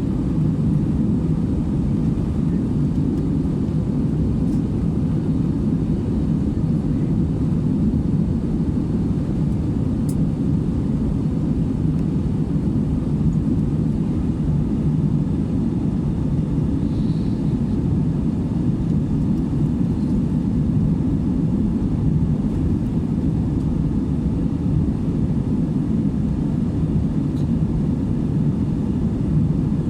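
Steady low drone of a passenger airliner heard from inside the cabin, engine and airflow noise holding even throughout.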